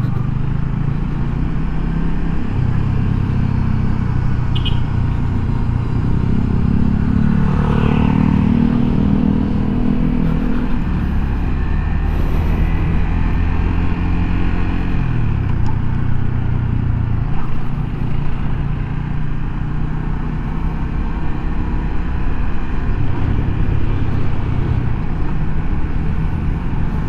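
Motorcycle engine and wind rush while riding in traffic, heard through a microphone inside a closed full-face helmet. The engine note rises around eight seconds in.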